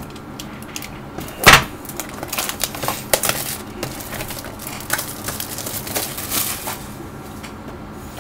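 Trading card box being opened by hand: one sharp snap about a second and a half in, then a few seconds of crinkling and rustling as the clear plastic wrapping of the cards inside is handled.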